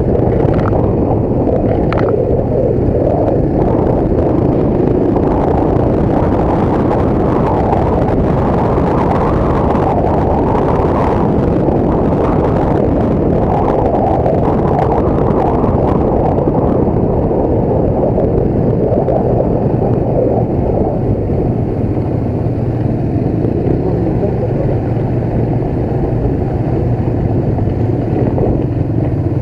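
Motorcycle engine running steadily while riding, mixed with wind noise on the microphone.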